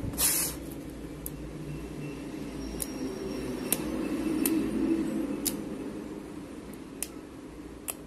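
A few faint, scattered clicks as the bare lead of a series test bulb is touched against the jointed coil leads of a ceiling fan stator, testing continuity. A low steady hum runs underneath, and there is a short hiss about half a second in.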